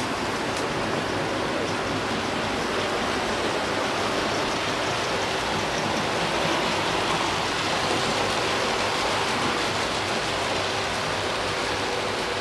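Hornby OO-gauge model steam locomotive with a tender-mounted motor running on the layout track: a steady whirring rush of motor and wheels on rail with a faint steady hum, swelling a little about halfway through.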